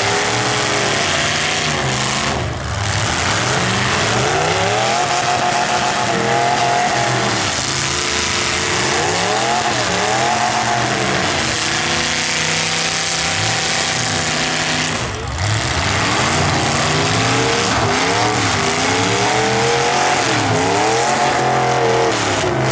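Several full-size demolition derby cars' engines revving up and down at once, their pitches rising and falling over one another, with tyre and crowd noise mixed in.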